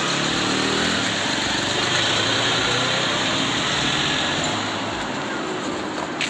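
A vehicle engine running steadily, heard as a constant hiss with a low hum that fades in the first second; it eases a little about five seconds in.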